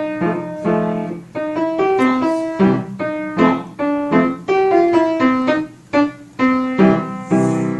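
Piano music: a melody of struck notes over chords, about two notes a second, ending on a chord that fades away.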